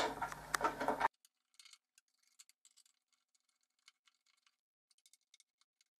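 A few sharp clicks from an Allen key turning the bolts that fix a handle to a telescope base, in the first second, then near silence with faint scattered ticks.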